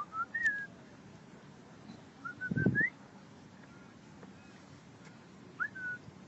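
Black swans calling: short, high, whistled notes in three brief groups, the middle group with a rising note near the end.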